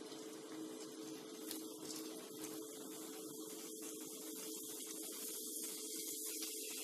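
Samosas deep-frying in hot oil in a kadai: a steady faint sizzle, over a low steady hum.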